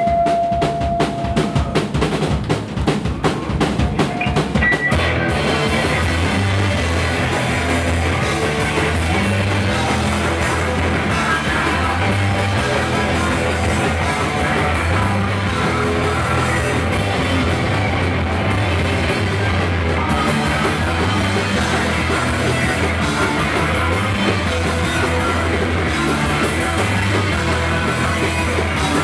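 Hardcore punk band playing live: a run of rapid, evenly spaced drum hits over a fading guitar note, then the full band of drums, distorted guitars, bass and vocals comes in about five seconds in and plays on steadily.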